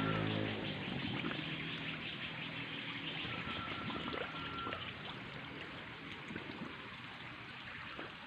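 Water trickling and running as a fish pond is drained. A steady hum cuts off about half a second in, leaving only the water.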